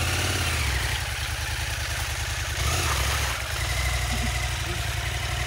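Adventure motorcycle engine running steadily just after being started, with a brief rise in throttle about two and a half seconds in as the bike is ridden out of a muddy rut.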